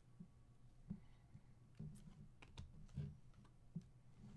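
Faint, scattered clicks and taps of a stack of Panini Prizm basketball cards being flipped through by hand, one card slid behind another.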